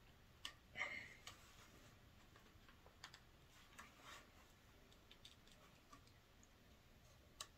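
Faint scattered clicks and taps of a plastic figure being handled while its foot is worked onto the peg of its display base, with one sharper click near the end.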